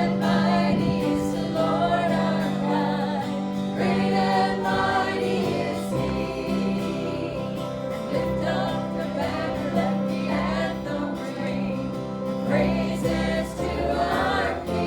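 Gospel singing by a group of voices over steady instrumental accompaniment.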